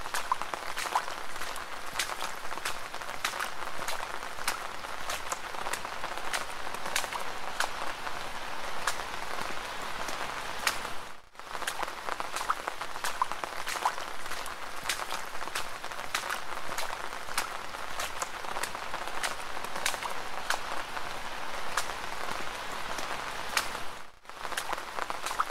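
Rain falling, a steady dense patter of many sharp drop hits. It cuts out briefly twice, about 13 seconds apart.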